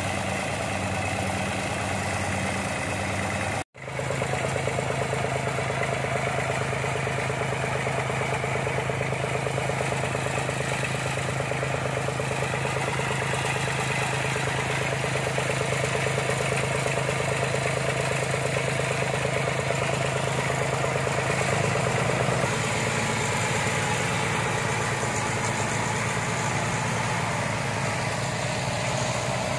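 Engine of a tracked rice-hauling carrier (máy cộ lúa) running steadily. The sound cuts out for an instant a little under four seconds in, and the engine's tone shifts slightly about twenty-one seconds in.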